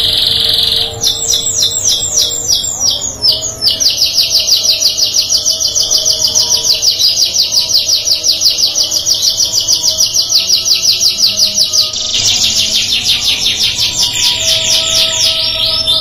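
Domestic canary singing a long rolling song. It opens with a buzzy held note and quick falling notes, runs into a long, even trill of about eight notes a second, and changes to a buzzier phrase about three-quarters of the way through.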